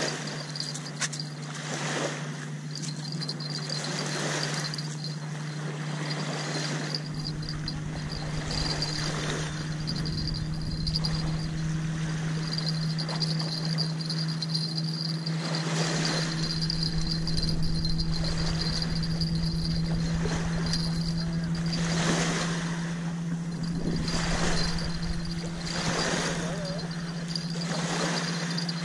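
Small waves lapping on a sandy lake shore in soft surges every couple of seconds, with wind rumbling on the microphone at times, over a steady low hum.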